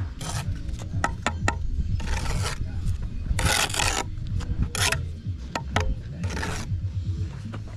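Steel brick trowel scraping excess lime mortar off fresh joints and brick faces in several short rasping strokes, the longest about halfway through, with a few sharp clicks of the trowel against brick.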